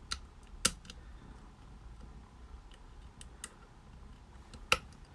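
Sharp, scattered metallic clicks, the loudest about half a second and about four and a half seconds in, from a GJ multi-pick working the levers inside a Chubb 110 five-lever detainer mortice lock.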